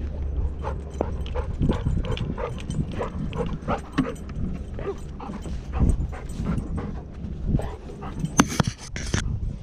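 Golden retriever panting, heard close up through a GoPro strapped to its back, with knocks and rumble from its movement and the harness. A louder rustling burst comes near the end.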